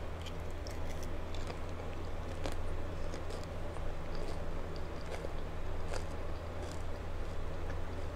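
Close-miked chewing of a crunchy hard-shell taco: a bite, then scattered crisp crunches as it is chewed, over a steady low hum.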